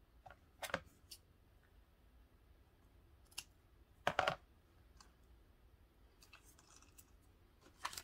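Hands handling ribbon and a small bead while wrapping a craft piece: a few short, scattered rustles and clicks, the loudest a brief cluster about four seconds in.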